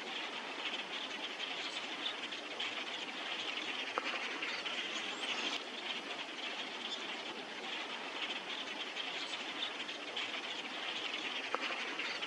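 A huge winter flock of grackles chattering overhead: thousands of calls blurring into one steady, dense din.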